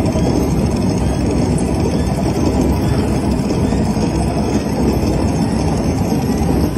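Video slot machine's speakers playing a steady, low, noisy rumble effect during a bonus feature as prize values are revealed on the reels.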